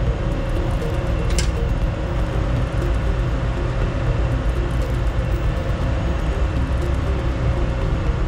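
Steady drone of a ship's machinery space, with a strong low rumble under a faint steady whine.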